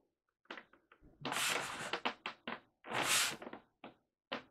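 Hands pressing down hard on a new Evans G2 coated drumhead on a 16-inch floor tom to stretch and seat it. There are two long crackling presses, about a second in and about three seconds in, with light knocks around them. The crackle is the normal sign of a new head stretching.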